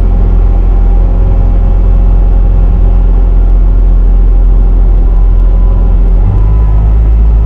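Bobcat T650 compact track loader's diesel engine running steadily under way, with a shift in the engine note about six seconds in.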